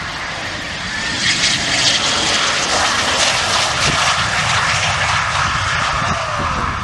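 Eurofighter Typhoon's twin jet engines as it comes in to land and touches down: a loud jet roar with hiss that swells about a second in and holds, with a faint steady whine, easing slightly near the end.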